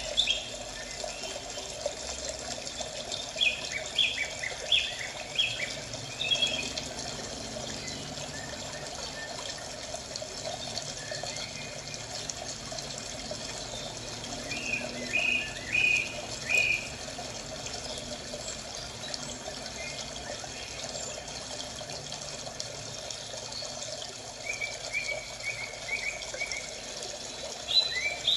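Birds chirping in short bursts of quick notes every ten seconds or so, over a steady sound of running water: a nature ambience track.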